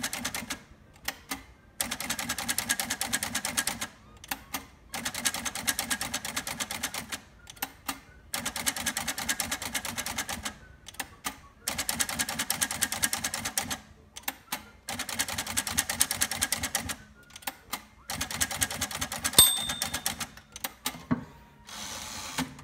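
Manual typewriter (a Smith-Corona-built 1964 Sears Celebrity) with its space bar tapped in quick runs, each about two seconds of rapid escapement clicks. Single clicks of the tab-set key come between the runs, setting tab stops every ten spaces. The margin bell rings once about 19 seconds in.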